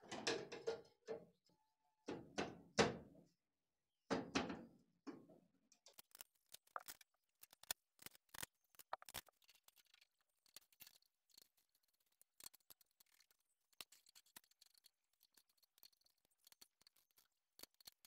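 Metal CVT cover of a Honda Aviator scooter knocking against the engine case as it is pressed into place, three short clusters of knocks in the first five seconds. After that, sparse faint metallic clicks as a wrench works the cover bolts.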